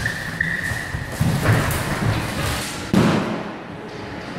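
Dull thuds and scuffling of people moving on a wooden floor in a large echoing room, with a high squeak in the first second and two louder thumps about a second and a half apart.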